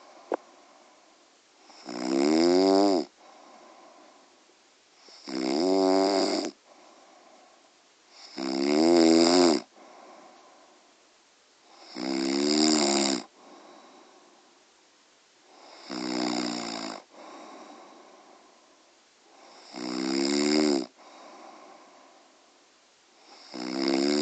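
A woman snoring heavily: a loud, rough, rattling snore about every three and a half seconds, each lasting about a second, with a softer breathing sound between them. There is a single sharp click near the start.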